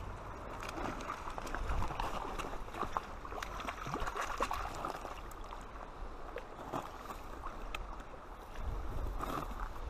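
A hooked trout splashing and thrashing at the water's surface near the bank, over the steady rush of river water, with scattered small sharp splashes and clicks.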